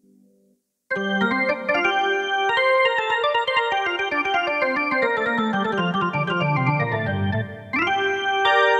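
Yamaha PSR-E473 portable keyboard played in a fast flurry of notes after a near-silent first second, with a low line stepping steadily downward. The notes stop briefly about three-quarters of the way in, then start again with a quick upward slide.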